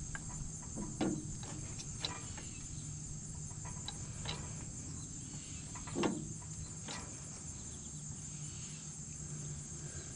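Steady high chirring of crickets, with a few light clicks and knocks as a wrench works the tractor's brake-band adjuster; the strongest knocks come about a second in and about six seconds in.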